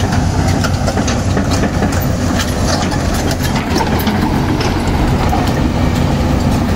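Hyundai crawler excavator's diesel engine running loud and steady as the machine tracks along, with irregular clanks and clicks from its steel crawler tracks.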